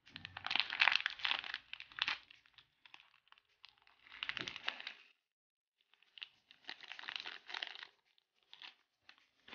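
A plastic sachet crinkling as dry oat flakes are shaken out of it into a paper cup, in three spells of rustling and crackle.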